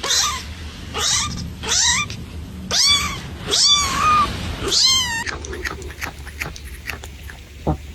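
A cat meowing about six times in quick succession, each call bending up and down in pitch. The calls stop about five seconds in, leaving soft clicks and a single knock near the end.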